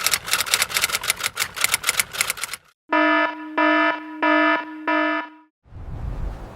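Rapid clicking, about ten clicks a second, for roughly two and a half seconds, then four loud buzzing electronic alarm beeps, evenly spaced. Near the end a low rumbling noise comes in.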